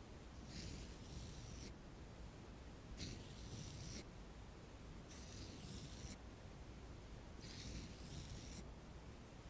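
Makeup being applied close to the microphone: four soft swishes, each about a second long, coming a couple of seconds apart.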